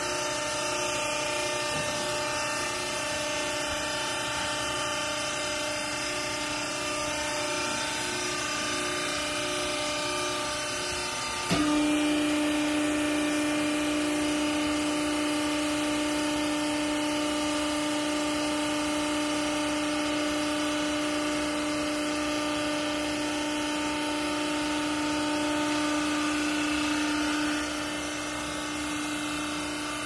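Vertical hydraulic clothing baler's electric motor and hydraulic pump running with a steady hum. About a third of the way in it turns suddenly louder with a strong low steady tone, the pump under load as the ram comes down and presses the clothes, and it eases back near the end.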